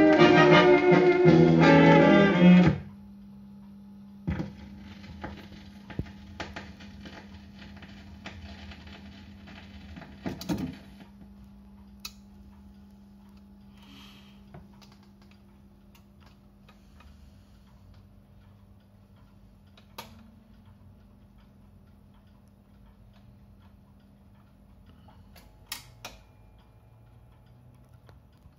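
Music playing from a record on a Siemens radio-gramophone's record changer stops abruptly about three seconds in. After that there is a steady low hum with scattered faint clicks from the player.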